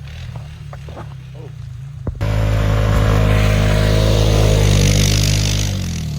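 Vehicle engine idling, then revving hard about two seconds in and holding under load with a broad rushing hiss, easing off near the end: the vehicle pulling away to tow a sled through snow.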